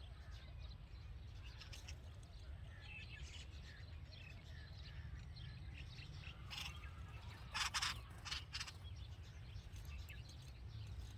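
Red-vented bulbul chirping at the nest: scattered short calls, with a louder cluster of quick calls about two-thirds of the way through, over a steady low rumble.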